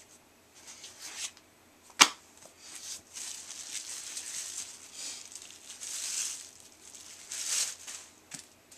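Plastic comic-book bags with backing boards rustling and crinkling as comics are handled, with one sharp click about two seconds in.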